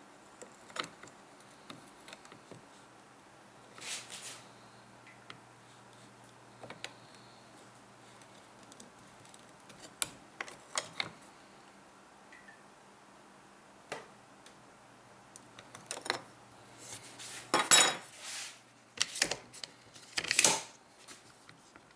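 Light metallic clicks and clinks of a wrench and steel rifle parts as the castle nut on an AR-15 buffer tube is tightened, scattered and irregular, with a run of louder scraping clatters near the end.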